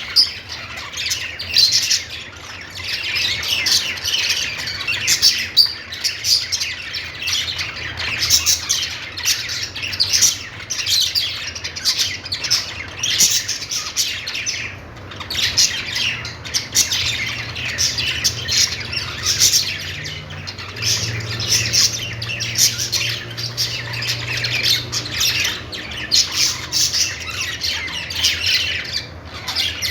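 Budgerigars chirping and chattering nonstop, many short calls overlapping at once.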